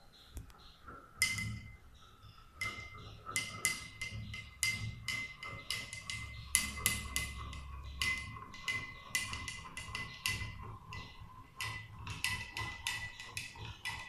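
A metal spoon clinking rapidly and irregularly against a glass tumbler of water, about three to four strikes a second, stirring salt in to dissolve it. Each strike sets the glass ringing faintly.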